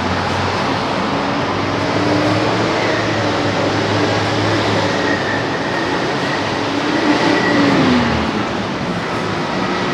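Busy city road traffic: a steady rumble of passing vehicles, with a whine that drops in pitch about eight seconds in.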